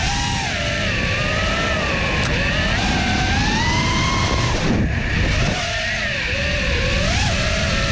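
5-inch FPV quadcopter's brushless motors and three-blade props whining, the pitch gliding up and down with the throttle, with a brief quick rise and fall near the end. A steady low rush runs under it.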